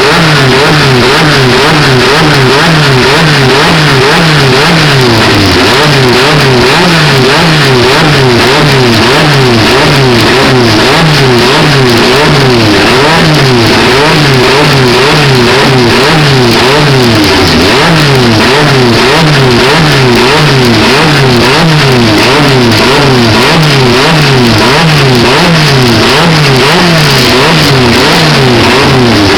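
Renault 5 Maxi Turbo's turbocharged four-cylinder engine revving, loud, its pitch climbing and then dropping sharply over and over, about once every second and a half.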